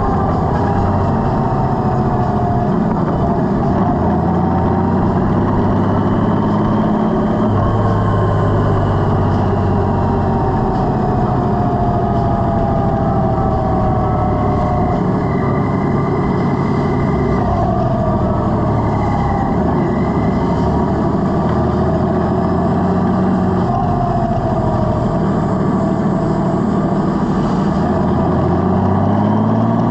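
Honda Gold Wing DCT's flat-six engine running under way, its pitch rising and falling several times as the speed changes, over steady wind and road noise.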